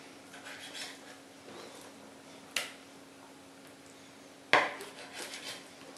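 Kitchen knife slicing raw chicken breast on a plastic cutting board: soft cutting and scraping, with two sharp knocks of the blade on the board, the second, about four and a half seconds in, the loudest.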